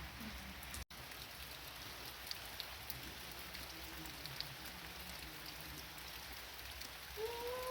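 Steady rain falling, an even hiss with scattered drop ticks; the sound cuts out for an instant about a second in. Near the end a drawn-out pitched sound begins over the rain.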